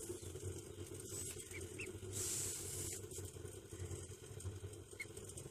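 Ducklings peeping softly, a few short rising peeps, over a steady low hum. A brief hiss about two seconds in.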